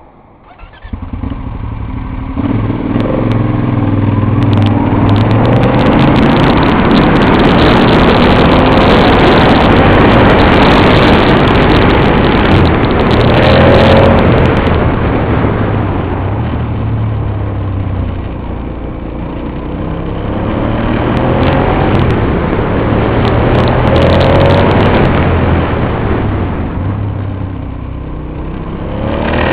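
Aprilia Dorsoduro 1200 motorcycle's V-twin engine running hard. It comes in about a second in, its pitch rising and falling over and over as it revs up and eases off, and it drops back twice before picking up again.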